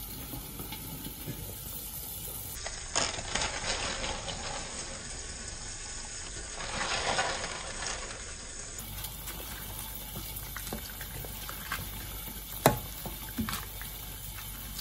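Broth bubbling softly in an enamelled pot on the stove while fresh spinach leaves are dropped into it. A sharp knock of a ladle against the pot comes near the end, followed by a lighter one.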